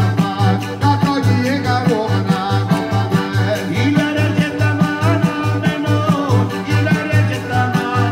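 Live Italian folk dance music: accordion and acoustic guitar over a drum, with a steady low beat about twice a second.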